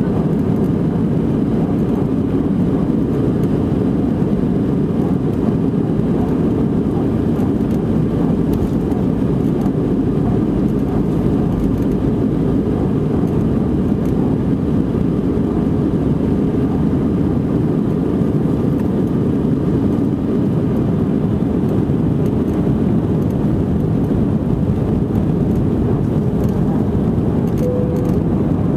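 Steady, loud jet-engine and airflow noise inside the passenger cabin of an Airbus A319, with its engines running. The noise is a low rumble that does not rise or fall.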